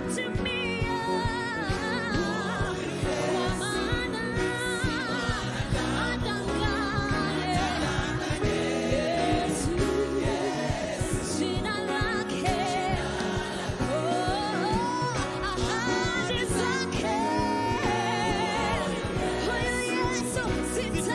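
Gospel worship music: singers with a backing band.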